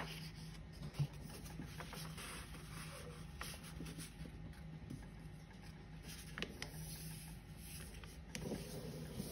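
A sheet of A4 paper being folded in half lengthwise and creased flat by hand: faint rustling and sliding of hands over paper, with a few soft taps.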